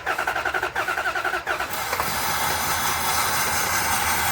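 2004 Dodge Dakota's 4.7 L V8 cranking on the starter with rapid even pulses, taking a while before it catches about a second and a half in and settles into running. The engine has been suffering random misfires on its left bank.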